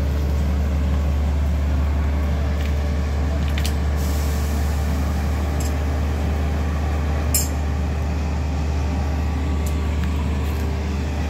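The diesel engine of a 140-tonne railway crane running with a steady, even drone. A short hiss about four seconds in, and a single sharp knock past the middle.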